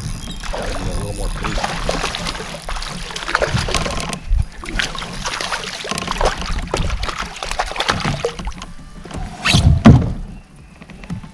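A hooked fish splashing and thrashing at the surface beside a kayak as it is reeled in, with knocks and rattles of tackle against the hull. The loudest splash comes about nine and a half seconds in, as the fish is lifted from the water.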